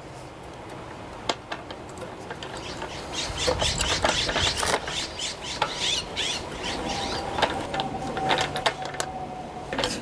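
Hands bending and pushing a rubber fuel line with an inline fuel filter into place around a small engine's carburetor: rubbing and scratching with a few light clicks, busier from about three seconds in.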